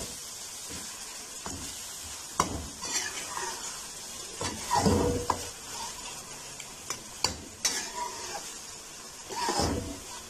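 A metal slotted spoon stirring a thick ketchup-and-tomato masala in a metal wok over a steady sizzle of frying, scraping and knocking against the pan several times.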